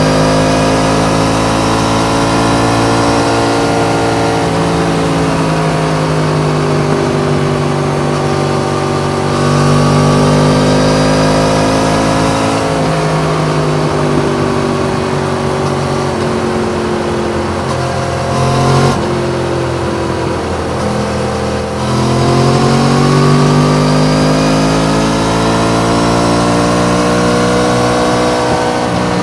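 Yamaha MT-10's crossplane inline-four engine running under load at highway cruising speed. Its note rises and falls gently with the throttle, dips about twenty seconds in, then climbs again.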